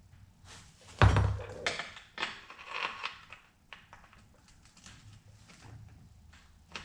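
A heavy thunk about a second in, followed by a couple of seconds of clattering and scraping, then scattered light clicks: tools and bike parts being handled during a pivot bearing swap.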